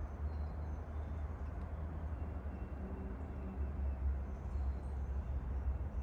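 Forest walk ambience: a low, uneven rumble with a few faint, short high bird chirps.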